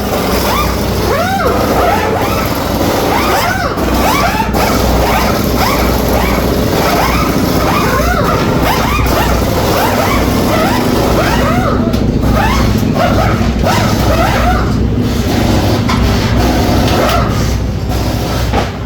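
Busy drag-racing pit noise: many overlapping voices calling and talking over a steady low mechanical hum.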